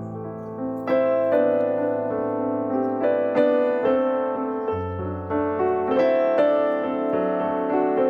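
Background music: a gentle piano melody with sustained notes and chords.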